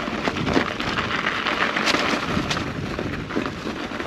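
Canyon Spectral mountain bike riding over a dirt or gravel trail: a steady crunch of tyres with many small clicks and rattles, mixed with wind rushing on the microphone.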